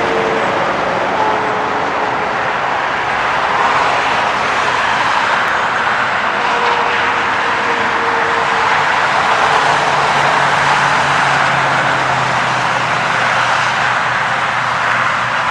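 Steady, loud vehicle roar with a faint hum underneath, holding level without rising or falling.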